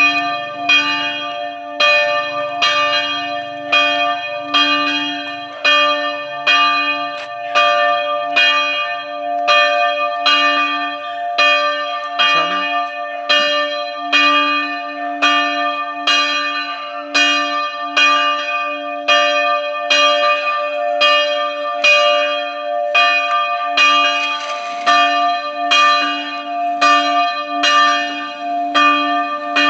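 A church bell ringing in a steady, even peal, struck about four times every three seconds, each stroke ringing on into the next over a sustained low hum.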